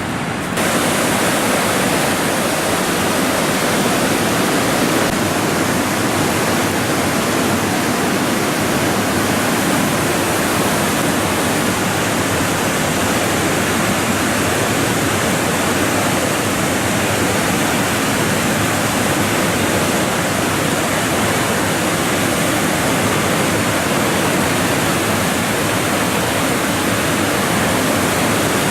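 The Mekong River's Khon Phapheng Falls rushing: the loud, steady wash of a huge volume of white water pouring over the cascades.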